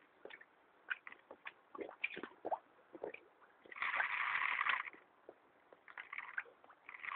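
Koi carp feeding at the pond surface: a scatter of wet sucking and slurping pops from their mouths, with a splash lasting about a second about four seconds in.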